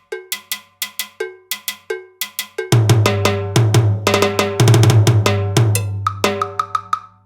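A sampled percussion pattern from a Roland SPD-30 Octapad preset: sharp, short ringing hits in a steady rhythm, joined about three seconds in by deep bass notes and denser hits.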